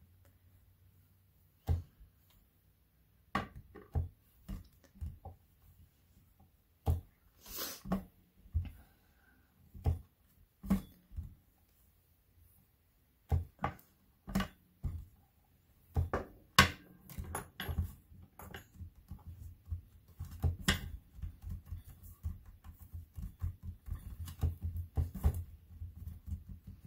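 Hands pressing, tapping and squaring a polymer clay cane block on a plastic cutting mat: scattered soft taps and knocks with quiet gaps, coming thicker in the last several seconds.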